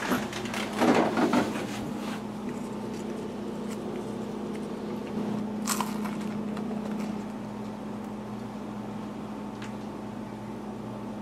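Refrigerator door pulled open with a jumble of rustling and knocks in the first second or so, followed by a steady electrical appliance hum. One short sharp click comes about six seconds in.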